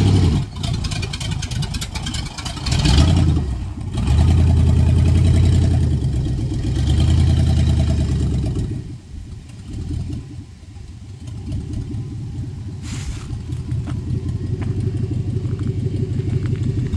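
1997 GMC K2500 pickup's 5.7-litre V8 running as the truck pulls away, revving up about three seconds in and staying loud until about nine seconds in. It then drops to a quieter, even idle.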